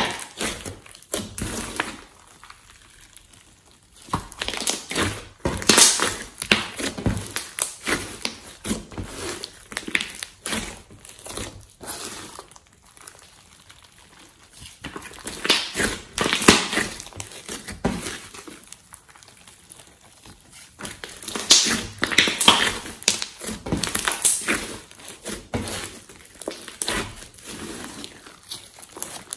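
Hands kneading, pressing and stretching glossy slime mixed with foam, glitter and clay. The slime makes sticky crackling and squishing sounds in bursts, with short quieter pauses between handfuls.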